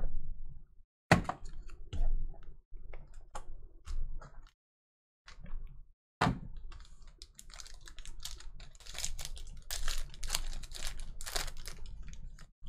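Cardboard card box and packs handled on a table, with several sharp knocks and taps. From about halfway, a foil trading-card pack wrapper crinkles and crackles as it is torn open.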